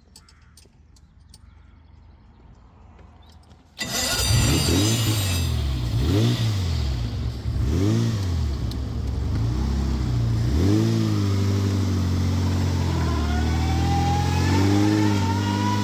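1929 Bugatti Type 43A's supercharged straight-eight engine, cutting in suddenly after a few seconds of near quiet with faint clicks. Its revs rise and fall several times, then hold steadier, with a whine that rises in pitch near the end.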